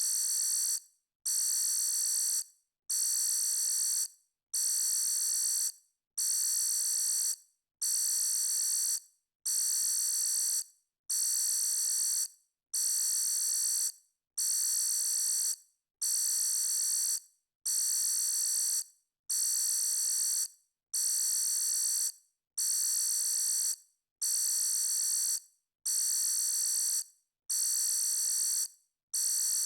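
Electronic alarm sounding in repeated high-pitched bursts, each about a second long and fading at its end, about one every 1.7 seconds.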